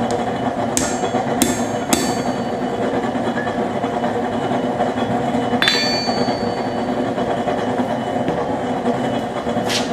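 Propane forge burner roaring steadily, with a few sharp metal-on-metal clanks that ring on: three close together at the start, one with a longer ring about halfway, and one near the end, as of a hammer or tools striking steel at the anvil.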